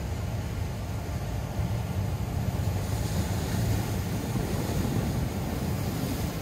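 Ocean surf breaking and washing over black lava rocks, a steady rushing roar with a heavy low rumble of wind on the microphone. The surge swells louder from about two seconds in and eases near the end.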